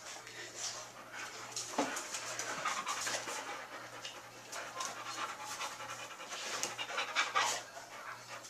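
A dog panting with quick, repeated breaths.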